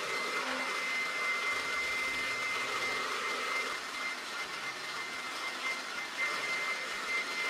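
Handheld blow dryer running steadily at full blast, a rush of air with a steady high whine from the motor.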